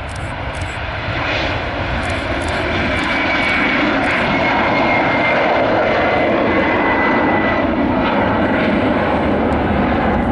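Boeing 767-400ER's twin General Electric CF6-80C2 turbofans at takeoff thrust as the airliner lifts off and climbs out: the jet noise grows louder over the first few seconds, then holds steady, with a faint high whine slowly falling in pitch.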